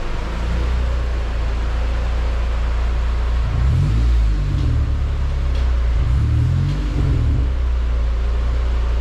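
Car engine running with a steady low rumble, its pitch rising and falling twice as it is revved briefly, about three and a half and six seconds in.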